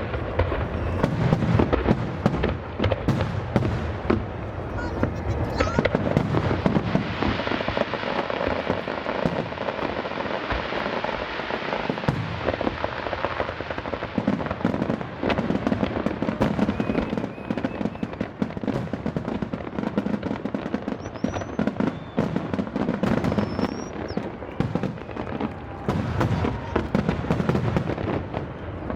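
Aerial fireworks display: a dense, continuous run of bangs and crackling shell bursts, with a few short whistles in the second half.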